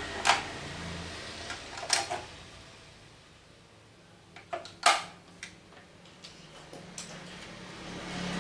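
A few sharp clicks and knocks from handling a manual steel-rule die bending machine, the loudest about five seconds in, over a low engine hum that grows near the end.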